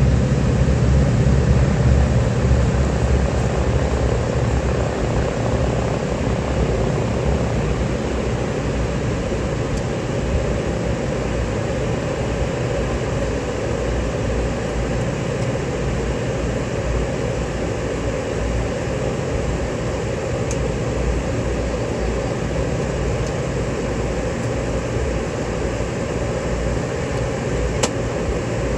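A Twin Beech's two radial engines at takeoff power as it climbs away, the low rumble loudest at first and easing off over several seconds as the plane recedes. A steady rushing drone carries on underneath.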